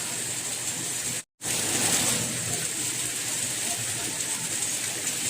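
Steady rain, an even hiss, that cuts out completely for a split second a little over a second in, a gap in the recording, then resumes.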